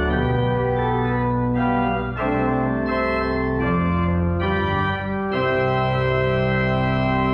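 Organ playing slow sustained chords, changing chord about every second, then settling on a long held chord about five seconds in.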